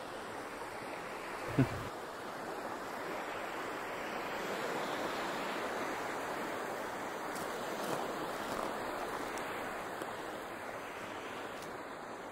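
Surf washing on a beach, a steady rushing that swells through the middle and eases toward the end. A brief sharp sound stands out about a second and a half in.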